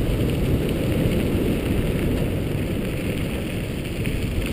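Wind buffeting the camera microphone and tyres rolling over a gravel track, from a dog scooter moving at speed behind two pulling dogs; a steady rushing rumble.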